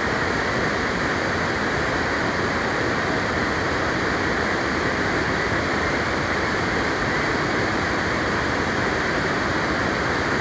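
River rapids: water pouring over a rock ledge and churning into white water, a steady, unbroken rush.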